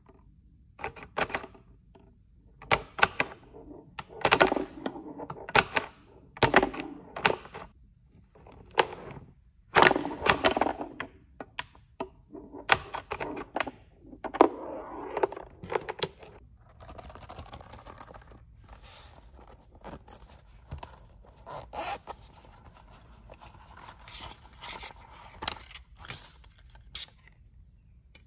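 Plastic tabletop pinball toy being played: its flippers clack and the ball rattles and knocks around the plastic playfield, in bursts of clicks about every second. Later on the clacking gives way to quieter clicking and rustling of handled plastic.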